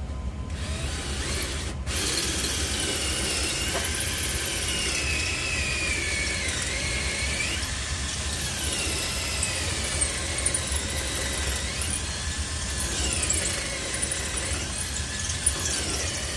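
Cordless drill (not a hammer drill) boring into a cement wall with a masonry bit: a steady grinding with a high whine whose pitch wanders up and down as the bit bites, starting abruptly about two seconds in.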